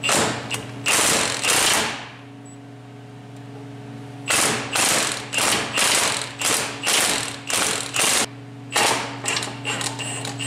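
Cordless Milwaukee impact wrench hammering in repeated short bursts on the bolt of the steering shaft's collar. There are a few bursts, a pause of about two seconds, then a quick run of about a dozen more. A steady low hum runs underneath.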